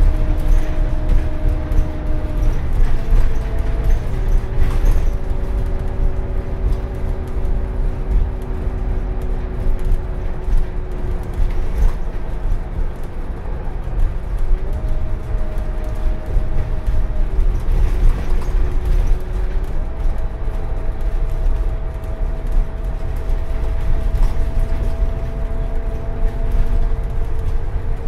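Scania N250UD double-decker bus under way, heard from inside the lower deck: a heavy low engine drone with a steady whine over it. The whine drops in pitch a few seconds in, rises again around the middle, drops briefly and then climbs slowly near the end.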